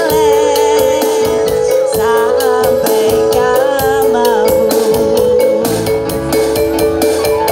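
Live stage music through a PA: singing of a regional song over a long held keyboard note and a steady percussion beat.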